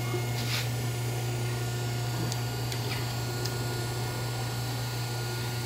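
Hydraulic hose crimping machine's motor and pump running with a steady low hum, with a few faint light ticks.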